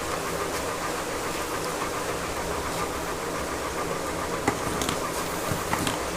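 Steady machine hum, such as a running engine or motor, with two short clicks near the end.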